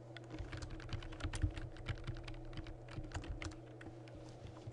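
Computer keyboard being typed on, a quick run of key clicks that thins out toward the end, over a steady low hum.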